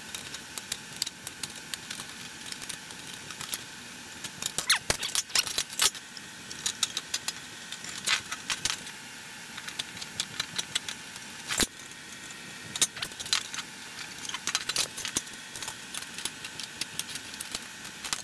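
Hand-held sheet metal shears snipping through thin sheet metal: irregular crisp clicks and crunches of the blades with the sheet rattling, a few snips sharper and louder than the rest.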